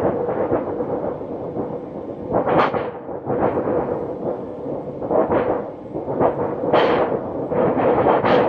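A 24-inch tin sheet shaken as a thunder sheet to imitate a distant thunderstorm. It makes repeated rumbling swells, one every second or so, over a steady metallic ring.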